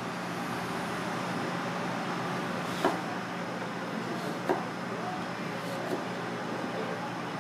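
Three sharp taps of a chef's knife cutting through a carrot onto a plastic cutting board, spaced about a second and a half apart, over a steady background hum.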